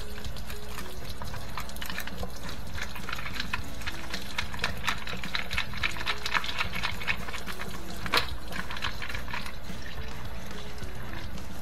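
Water pouring and splashing as a dishwasher's rinse-aid dispenser is flushed out to clear what the owner takes for dried, crystallised rinse aid clogging it. There are many small splashy clicks over a steady low hum, and a sharper click about eight seconds in.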